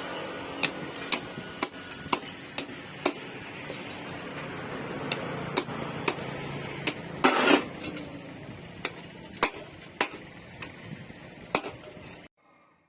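Irregular sharp metallic taps and clinks of tools against steel over a light background hiss, with a louder noisy burst about half a second long around seven seconds in. The sound cuts off abruptly near the end.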